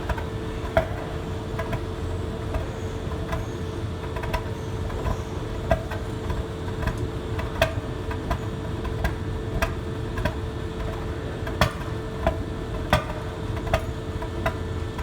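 Bentley's Audi 4.0-litre twin-turbo V8 idling with a steady drone and hum, broken by sharp, uneven ticks or pops about once a second: the engine misfiring from hard carbon deposits.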